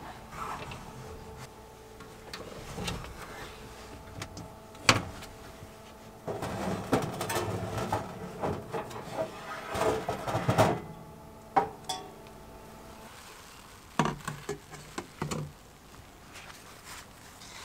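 Metal clanks and rattles of a lantern frame being hung and moved on a wire oven rack, over the steady hum of a running oven. There is one sharp clank about five seconds in, a stretch of rattling from about six to eleven seconds, and a few knocks near the end.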